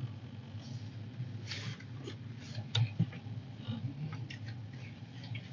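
Low, steady rumble of a car heard from inside the cabin, with a few faint clicks and taps scattered through it.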